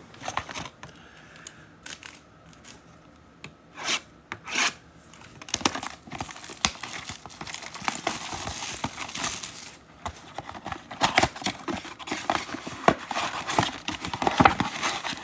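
A trading-card mega box being opened: plastic wrap and cardboard torn and crinkled. A few sharp clicks and knocks come first, then about four seconds of steady tearing and crinkling, then scattered crackling as the packs are handled.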